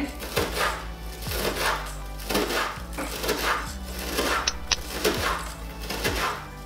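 Kitchen knife chopping frozen parsley on a plastic cutting board: quick, regular knocks about two a second, over background music.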